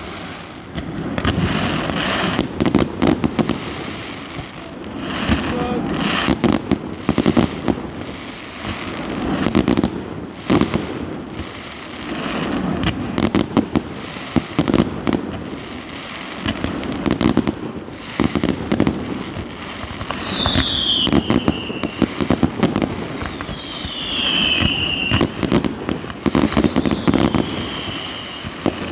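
Fireworks and firecrackers going off in rapid, irregular bangs over a murmuring crowd. About twenty seconds in, a few whistling fireworks give falling whistles.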